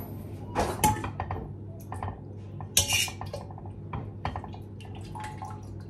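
Metal utensil clinking and scraping against a stainless steel pot and a glass storage container as cooked chicken is lifted out of its broth. The clinks and knocks come irregularly, loudest about three seconds in, over a faint steady low hum.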